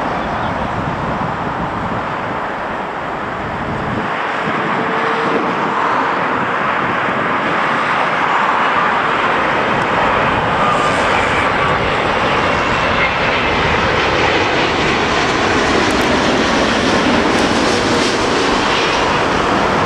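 Boeing 787's Rolls-Royce Trent 1000 turbofans on landing approach passing low overhead: a steady jet rush that grows louder about four seconds in and stays loud, with a faint whine in it.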